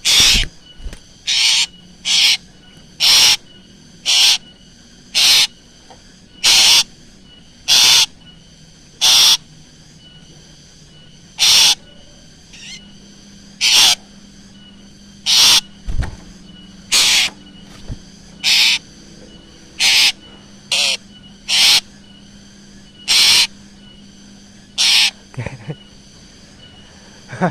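Black drongo calling: short, loud, harsh notes repeated about once a second, with a pause of a couple of seconds near the middle.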